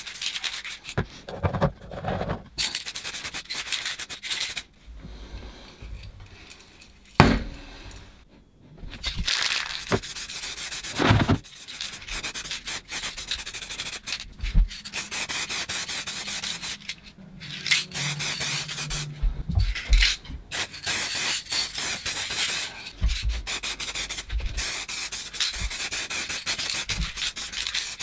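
Aerosol spray-paint can hissing in repeated bursts, each a spraying pass of black paint onto the mower's fuel tank and air filter housing, with short pauses between passes. A couple of sharp knocks come in the first half.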